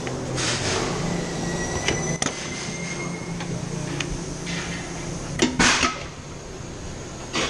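Compressed air hissing in several short bursts, the loudest just before six seconds in, with sharp metal clicks and knocks over a steady low machine hum: tyre-fitting work with air tools.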